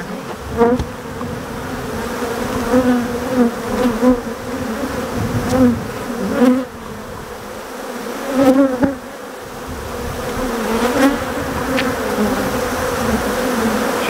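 Buzzing of an open colony of Africanized honey bees, with individual bees flying close by several times, their hum wavering up and down in pitch as each one passes.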